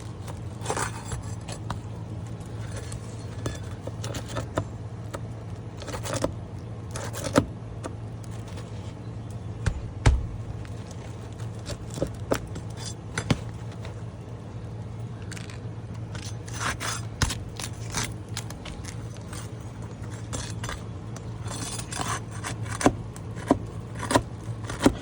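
Intermittent scraping, clicking and tearing as a roof shingle is pried loose and its nails worked out; the brittle, worn shingle rips as it comes away. A steady low hum runs underneath.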